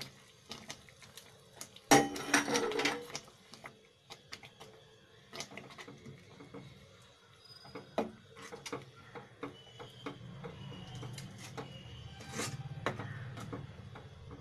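Metal ladle stirring thick oats pongal in a pan: scattered clicks and knocks of the spoon against the pan and wet squelching, with a louder clatter of metal about two seconds in. A low steady hum builds up in the second half.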